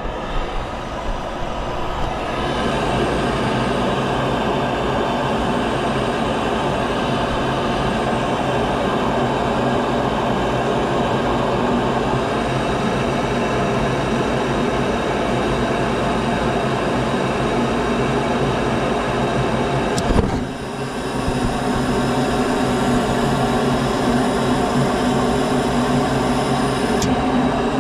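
Steady mechanical running drone with a constant hum, broken by a brief click and dip about twenty seconds in, then continuing.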